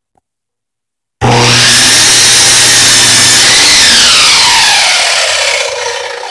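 Miter saw starting up suddenly about a second in and running at full speed, cutting a 2x4. Near the end the trigger is released and the blade and motor wind down, the whine falling in pitch and fading.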